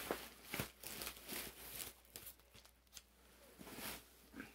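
Bubble wrap and cardboard packing rustling and crinkling under hands digging through a box as a vinyl record is lifted out. The rustling is busiest in the first two seconds, then quieter.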